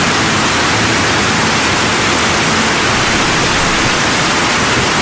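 Loud, steady hiss like static, even across the whole range from low to high, with no tone or rhythm.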